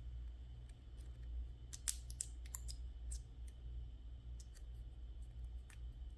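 Scattered light clicks and taps of small metal parts and tools on a lock cylinder being worked apart, a quick cluster about two seconds in, over a low steady hum.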